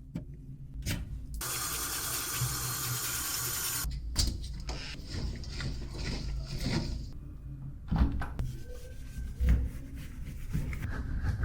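Washing machine being cleaned by hand: a steady hiss of water for about two and a half seconds, then a few seconds of rubbing and wiping, with a couple of sharp knocks near the end.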